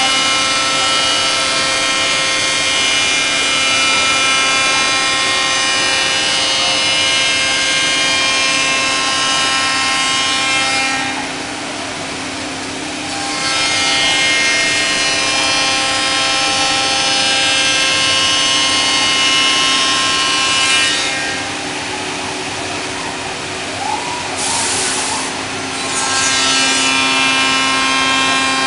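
Bacci Master-Win five-axis CNC working centre machining solid wood: the spindle and profiling cutter run with a steady multi-tone whine as the cutter works the wood. The sound drops twice as the cutter eases off the cut, with a short hiss near the end.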